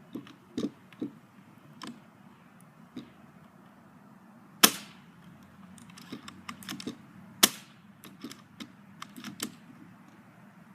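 Airsoft sniper rifle firing twice, two sharp cracks a little under three seconds apart, with lighter clicks and knocks from handling the gun before and between the shots.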